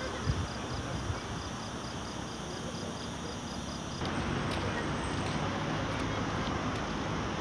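Steady outdoor background noise with distant road traffic, with a faint high regular pulsing at first. About four seconds in it cuts to a louder, fuller hiss with a few faint ticks.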